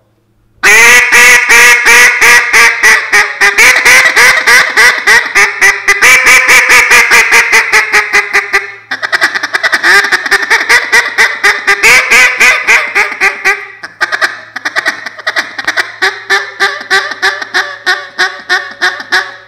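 Buck Gardner Double Cross short-barrel, double-reed duck call blown in quick runs of mallard-hen quacks. It is loud, with short breaks about 9 and 14 seconds in, and the last runs are softer.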